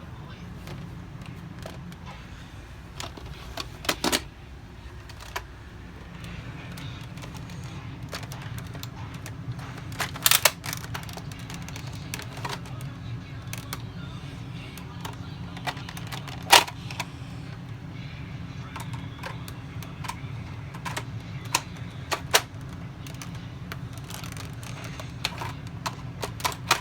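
Scattered plastic clicks and clacks of Nerf blasters being handled and reloaded, a few sharper knocks among them, over a steady low hum.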